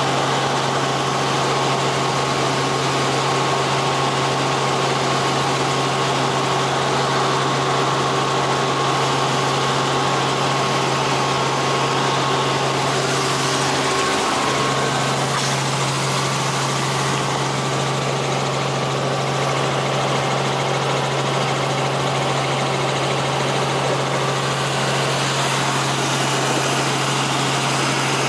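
Helicopter engine and rotor noise inside the cabin in flight: a steady drone with a strong low hum. The tone shifts slightly about halfway through.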